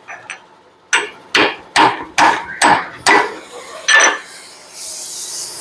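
About seven hammer blows on a steel steering knuckle, roughly two a second with a longer pause before the last, each a sharp metallic knock with a short ring. The knuckle is being tapped back into line on the axle end so the king pin can be driven in. A steady hiss starts near the end.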